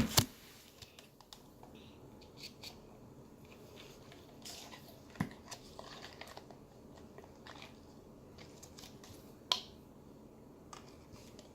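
Faint sticky, wet squishing and small clicks of homemade soap-and-salt slime being handled and pulled between the fingers, with a couple of sharper clicks about five and nine seconds in.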